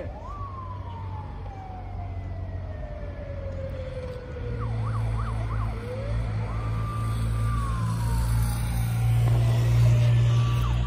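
Police escort sirens: a slow wail falling over about four seconds, a few quick yelps about halfway, then a rise, a short hold and another fall, with quick yelps again near the end. A low vehicle rumble underneath grows louder through the second half as the escort vehicles approach.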